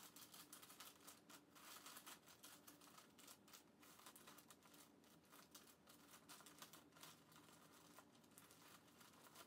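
Faint, irregular crinkling and rustling of wrapping paper being folded and creased by hand.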